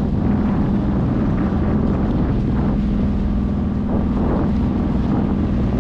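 Motorised bangka's engine running steadily as the boat cruises, a constant drone with a held hum, with wind buffeting the microphone.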